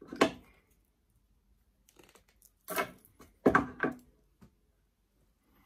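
Handling noise from wiring a young yew bonsai: four short rustling scrapes as the branches and bonsai wire are worked by hand, one at the very start and three close together about three to four seconds in.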